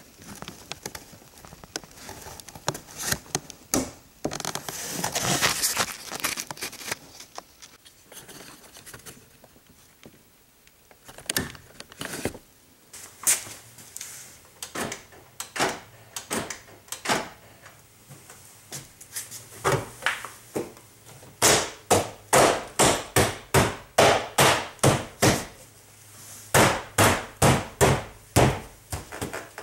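Parts being fitted into a Chrysler Town & Country minivan's front door, with rustling and scraping, then sharp knocks on the door trim panel. Near the end come two quick runs of knocks, about two or three a second, as the panel is knocked home.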